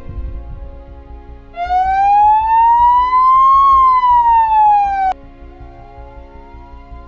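Ambulance siren giving a slow wail: one loud rise and fall in pitch, cut off suddenly, then a quieter second rise and fall, over steady background music.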